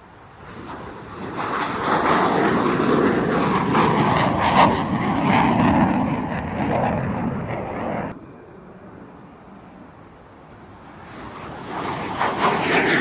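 EF-18 Hornet fighter jets taking off, their twin turbofan engines at full power: the roar builds, stays loud for several seconds and cuts off abruptly about eight seconds in, then a second jet's roar swells again near the end.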